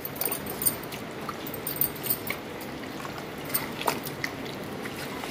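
A hand squishing and mixing raw chicken pieces in a thick yogurt and spice marinade: steady wet squelching, with a scattering of light clicks.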